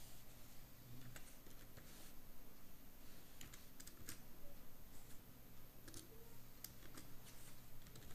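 Typing on a computer keyboard: faint, irregular keystrokes with short pauses between bursts.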